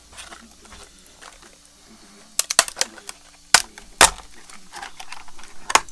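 Scattered sharp clicks and knocks of hand tools being handled at a workbench. A quick cluster comes about two and a half seconds in, and single clacks follow at about three and a half seconds, four seconds and near the end.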